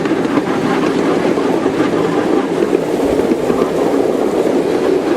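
Ride-on miniature railway train running along its track, a steady rumble and clatter of wheels on rails heard from aboard the cars.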